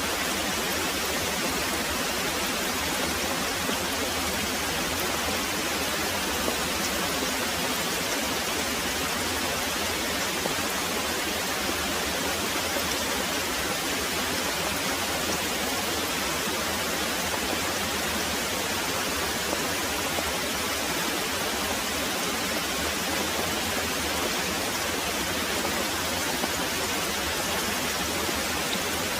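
Very heavy rain pouring steadily, a dense, even hiss with no let-up and no thunder.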